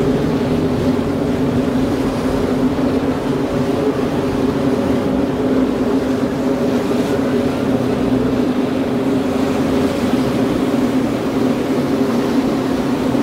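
Whale-watching cruise boat's engine running steadily under way, an even low hum, under a steady rush of wind and water.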